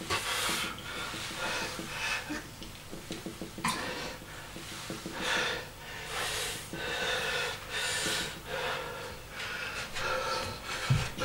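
A man breathing hard through a set of barbell curls, heavy breaths roughly every second. A low knock near the end as the loaded barbell is set on the bench.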